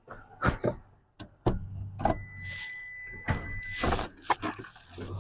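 Pickup truck running at low speed as it is inched up to a trailer hitch, a low steady hum with scattered knocks and clicks. A steady high beep starts about two seconds in and lasts nearly two seconds.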